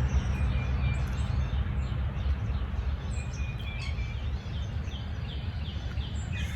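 Songbirds chirping, one repeating a short high note a few times a second from about halfway through, over a steady low rumble.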